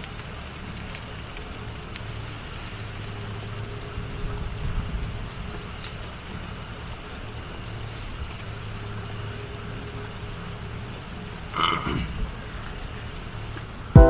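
Night chorus of frogs and insects: a steady high buzzing with a regular pulsing call above it, and a short high chirp repeating every couple of seconds. A brief knock sounds near the end.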